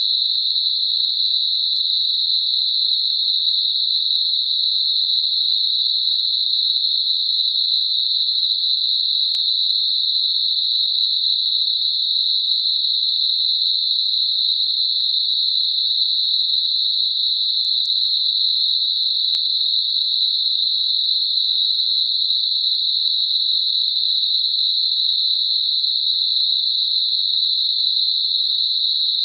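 Synthetic narrow-band noise centred on 4 kHz: a steady, high, even hiss with nothing lower or higher. It is a tinnitus masking sound.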